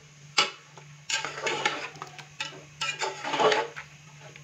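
Metal spoon scraping and clinking against the inside of an aluminium cooking pot while stirring chicken and spices: a sharp clink about half a second in, then several short bursts of scraping.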